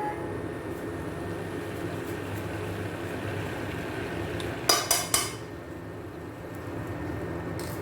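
Metal utensil clinking against a cooking pan: three quick sharp clinks about halfway through, over a steady low background noise.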